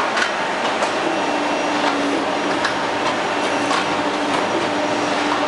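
Hydraulic riveting machine working on a vehicle chassis frame: a steady mechanical noise with a hum that comes in twice, plus a few light clicks.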